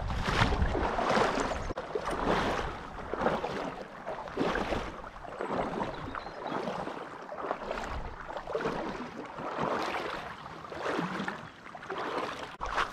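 Legs wading through a shallow river, water sloshing and splashing with each stride, about one stride a second.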